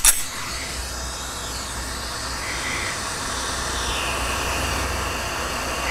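Lampworking bench torch flame burning with a steady rushing hiss. There is a sharp click at the very start.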